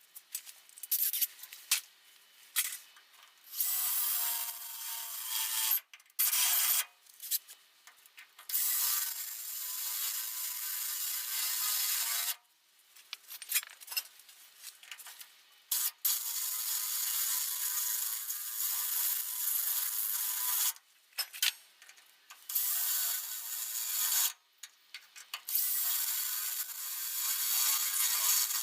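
Power drill drilling out spot welds in steel car body panels, running in repeated bursts of a second or a few seconds with short stops between welds.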